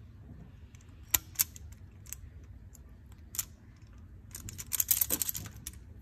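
Sharp metal-and-plastic clicks of a hand-held self-adjusting wire stripper being worked and handled: two loud snaps about a second in, a couple more, then a rapid clatter of clicks near the end.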